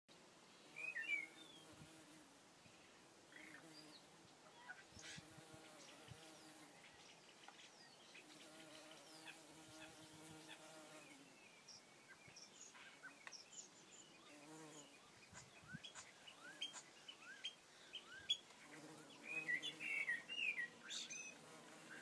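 Bumblebees buzzing, their hum coming and going as they fly about, with birds chirping and singing; a cluster of bird chirps stands out about a second in and again near the end.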